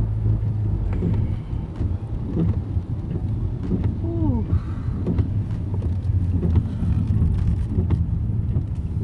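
Steady low rumble of a moving car heard from inside the cabin, with a brief falling tone about four seconds in.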